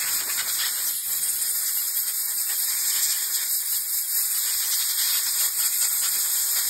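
Compressed air hissing steadily from an air-hose blow nozzle as it is blown through the ports of a small weed eater carburetor to clear them.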